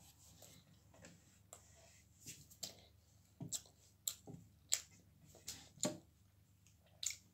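Mouth sounds of someone chewing pizza: about a dozen irregular wet clicks and smacks, louder in the second half.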